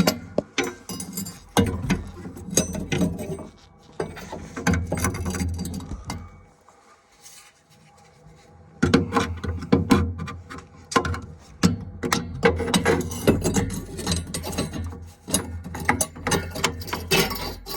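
Irregular metallic clicking, clinking and scraping as the baffles are worked out of a gas boiler's heat exchanger with a tool, with a brief quieter pause about halfway through.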